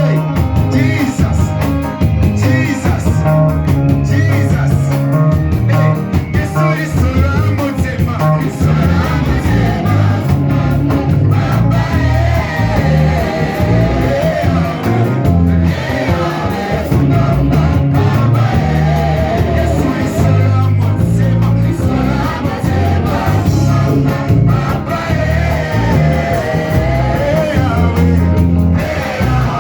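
Live worship music: a band with loud bass playing while voices sing a praise song.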